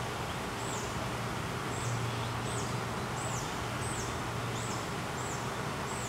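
A high, thin animal call, each a quick sweep up and then down, repeated about every three-quarters of a second over a constant hiss and a steady low hum.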